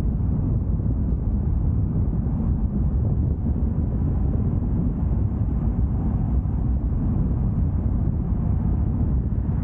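Steady low rumble of a moving car: road noise and engine drone, even throughout with no distinct events.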